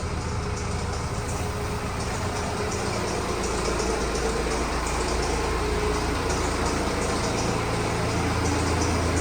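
BMW N47 four-cylinder diesel engine running with a bad timing chain rattle, the sign of a worn timing chain that the owner takes to be the original after over 130,000 miles. The engine gets a little louder about three seconds in.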